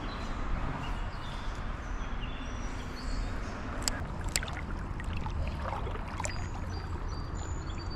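Creek water running steadily with a low rumble, short high bird notes above it, and a couple of sharp ticks about four seconds in.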